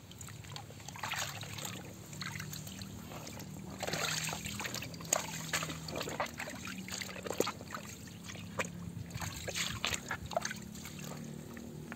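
Shallow stream water sloshing and trickling, with a string of small, irregular splashes.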